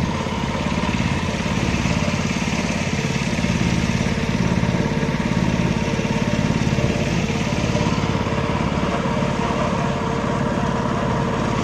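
A small boat's engine running steadily at an even speed.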